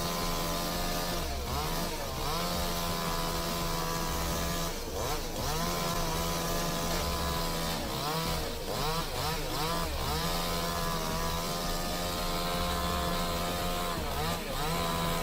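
Two-stroke chainsaw running at high revs, its engine pitch dipping and climbing back several times.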